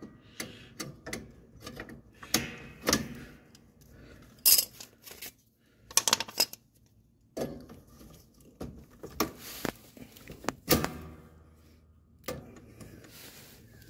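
Pliers working a retaining clip on a ride-on mower's steel blade-engagement linkage: irregular metal clicks, taps and scrapes as the clip is worked loose.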